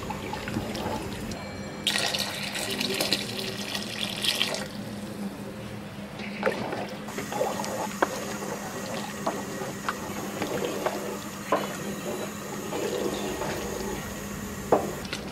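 A wooden spatula stirring rice in a pot of hot water and milk, the liquid sloshing and swishing, louder for a couple of seconds near the start. The spatula knocks against the pot now and then.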